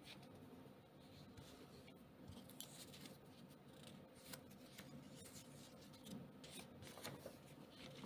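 Faint rustling and crackling of old paper notgeld banknotes handled by fingers, a few brief crackles scattered through.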